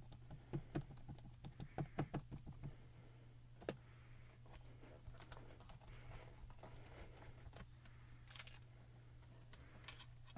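Faint taps and clicks of hand stamping: a clear photopolymer stamp being inked and pressed onto card stock in a MISTI stamp positioner, with one sharper click about four seconds in.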